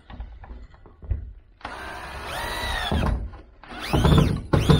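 Cordless drill-driver driving a screw into wood: the motor whirs up and back down in three runs, a longer one of about a second, then two short ones near the end. A single knock comes about a second in.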